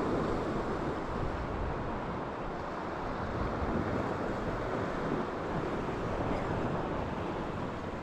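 Choppy sea surf washing on the shore, with wind buffeting the microphone: a steady rushing noise with no separate events.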